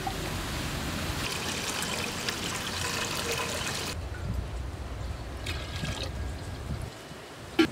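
Water poured from a small steel tumbler trickling and splashing over a steel plate as it is rinsed, heaviest in the first half. A sharp knock near the end.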